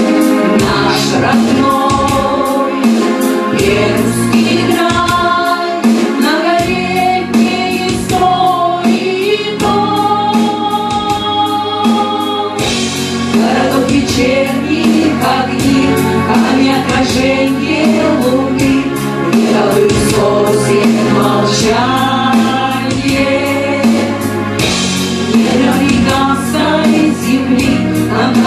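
A vocal ensemble singing a song in chorus over instrumental accompaniment with a steady beat.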